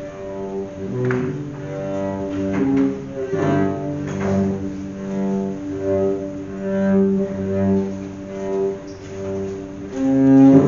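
Improvised instrumental music of low bowed-string notes, held and swelling one after another, with a slow shifting melody.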